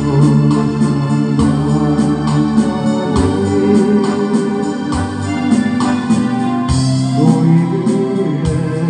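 Electronic organ music with a steady beat, playing the accompaniment of a Korean folk-pop song.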